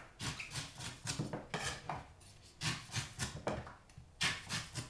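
Knife blade shaving the soft outer husk off a young Thai coconut in a series of short scraping cuts, several a second, with a couple of brief pauses.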